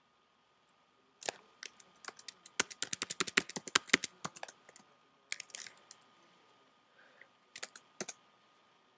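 Typing on a computer keyboard. A fast run of key clicks starts about a second in and lasts about three seconds, followed by a few scattered keystrokes.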